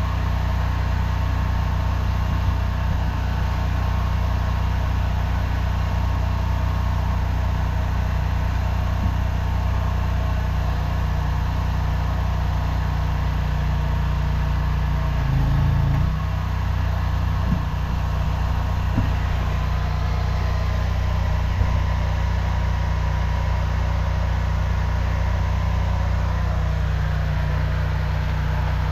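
An engine idling steadily with a low hum, swelling briefly about fifteen seconds in, with a few faint knocks after.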